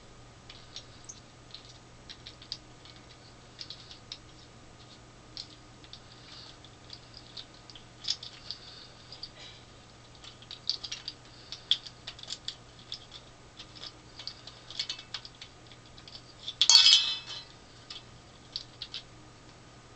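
Small hard plastic accessory parts being handled and fitted together: scattered light clicks and taps, with a louder brief crackle about three seconds before the end, over a faint steady low hum.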